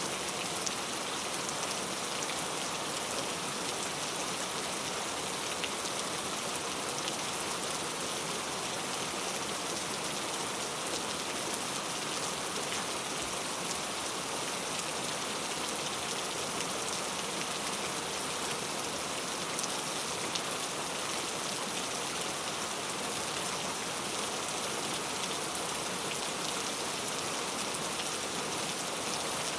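Steady rainfall pattering on a surface, an even hiss with fine drop sounds that holds the same throughout.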